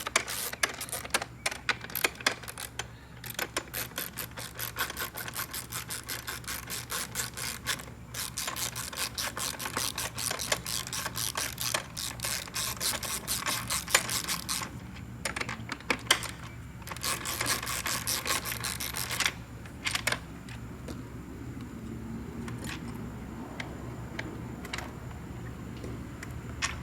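Ratchet wrench clicking in long, rapid runs with short breaks as the bolts holding a motorcycle's rear fender are unscrewed. The clicking stops about 19 seconds in, leaving a faint hum and a few scattered clicks.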